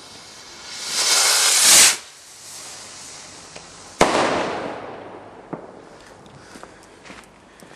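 Firework rocket in flight: a loud rushing hiss swells for about a second and cuts off, then about four seconds in the rocket bursts with a sharp bang whose rumble fades over a second or so, followed by a few faint scattered crackles.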